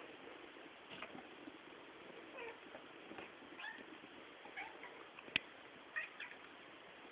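Cats giving short, high meows, about half a dozen spread out, with one sharp click about five seconds in.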